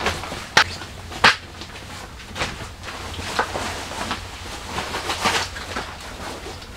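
Handling noise of a waterproof duffel bag being set down on a small folding camp table and its straps moved: rustling and scuffing with footsteps, and two sharp knocks about half a second and a second and a quarter in.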